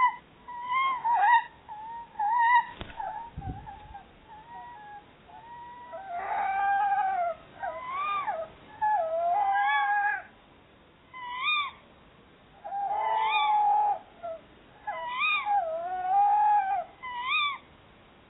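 Tawny owls calling back and forth: many short squealing calls that rise and fall in pitch, some longer wavering calls, and repeated quick up-and-down notes, in bouts with short pauses between. A brief knock and a low bump about three seconds in.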